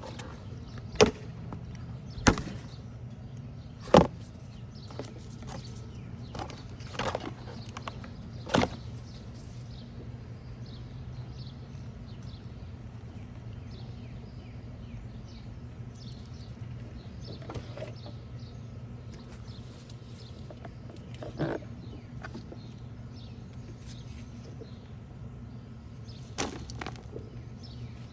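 Potato-bed soil being dug by hand and shifted into a bucket, with several sharp knocks in the first nine seconds and a few softer ones later, over a steady low hum.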